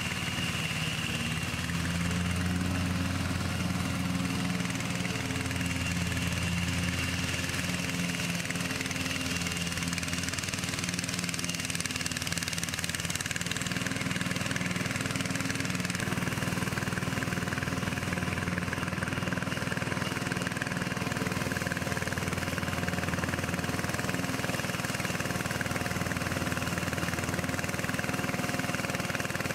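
Rebuilt Briggs & Stratton 17.5 HP engine of a riding lawn tractor running steadily while the tractor mows grass, with its carburetor problems now sorted.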